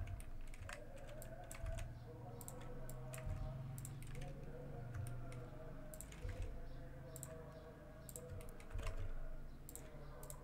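Faint, irregular clicks of computer keys and a mouse as UV points are scaled and moved, over a low steady hum.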